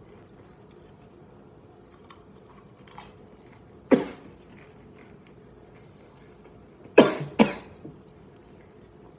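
A man coughing into his fist: one sharp cough about four seconds in, then two in quick succession about seven seconds in. The coughing comes from the burn of Carolina Reaper–spiced popcorn in his throat.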